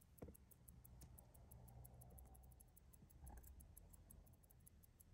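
Near silence: faint room tone with a couple of soft small clicks.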